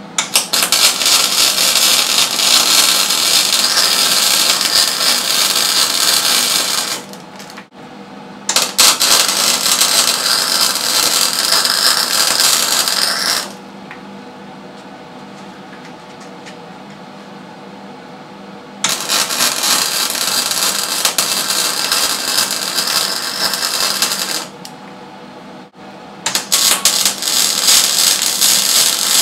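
Wire-feed (MIG) welder laying weld beads on a steel engine-mount bracket: the arc crackles and sizzles in four runs of roughly five seconds each. In the short pauses between runs only a low steady hum remains.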